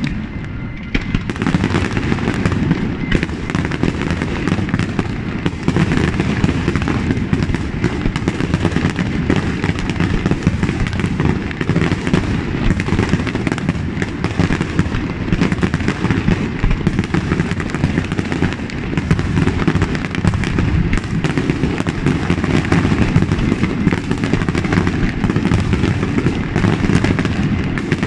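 Aerial fireworks display in a continuous, dense barrage: shell bursts and crackle follow one another without pause, deep booms mixed with sharper reports.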